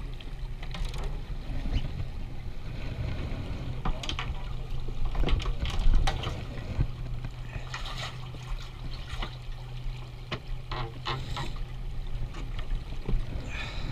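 Water sloshing and trickling against a boat hull over a steady low hum, with scattered clicks and knocks as fishing rods are handled.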